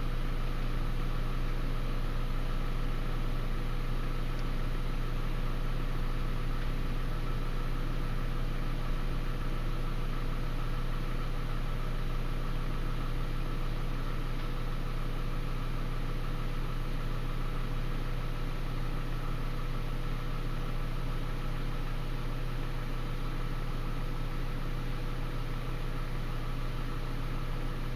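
Steady mechanical hum with a constant hiss, unchanging throughout, with no thunderclaps or other sudden sounds.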